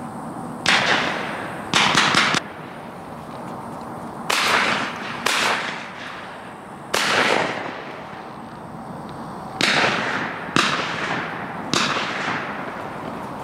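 Shotgun blasts at passing doves: about eight shots at uneven gaps, each with a short fading echo, and two of them close together about two seconds in.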